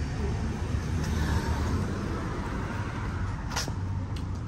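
Steady low rumble of road traffic, with one sharp knock about three and a half seconds in.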